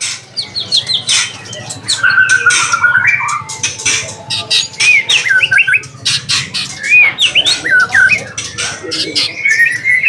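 White-rumped shama singing a varied song: whistled phrases that slide up and down, mixed with rapid sharp clicking notes.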